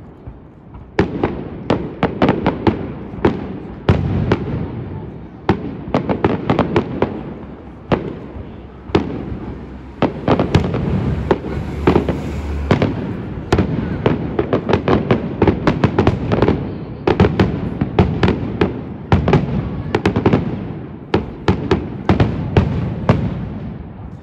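Aerial fireworks display with shells bursting in quick succession: a dense run of sharp bangs, several a second, over a steady low rumbling noise.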